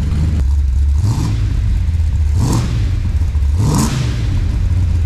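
Holden VR Clubsport's V8 idling through its exhaust, blipped three times, each blip a quick rise and fall in revs.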